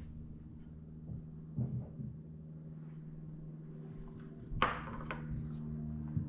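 Kitchen handling sounds: vegetables laid on a wooden cutting board and a ceramic plate set down on a stone counter. A few light knocks, then a sharp knock about four and a half seconds in, over a steady low hum.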